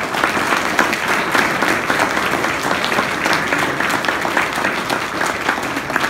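Audience applauding steadily, many hands clapping at once.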